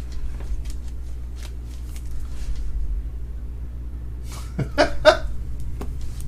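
Trading cards being handled and slid against one another: faint ticks and rustles, then a few sharper snaps about four and a half to five seconds in, over a steady low hum.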